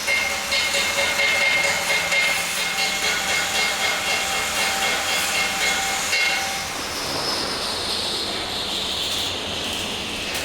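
Steady hissing from welding work, with a faint high whine that slides slowly lower in the second half.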